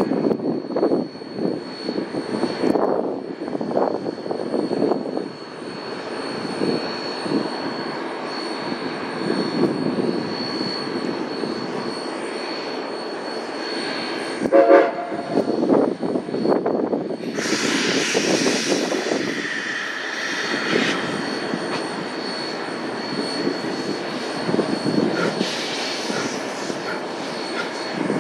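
D&SNG narrow-gauge steam locomotive No. 493 standing at work, with a steady high whine over a pulsing mechanical sound. About halfway through its whistle gives a short blast. A few seconds later a loud hiss of steam goes on for several seconds as the locomotive starts to move off.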